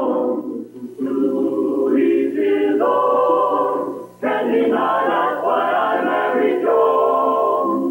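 Closing theme song sung by a vocal chorus in long held notes, in phrases with short breaks about a second in and about four seconds in.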